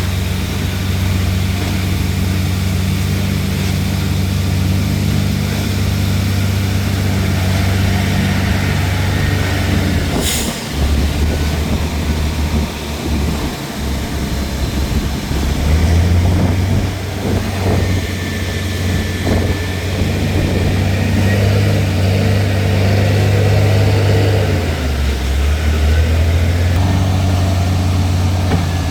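Heavy diesel engine of a truck-mounted concrete pump running steadily under load. Its note shifts down briefly about ten seconds in, with a short sharp click, and changes pitch again twice later.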